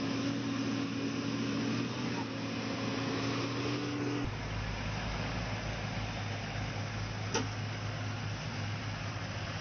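Heavy-equipment engine running steadily; the sound changes abruptly about four seconds in, and there is a single sharp click near the end.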